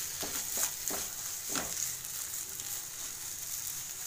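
Potato and jackfruit seed masala sizzling in a pan while a spoon stirs through it, with a few spoon scrapes in the first couple of seconds, then a steady sizzle.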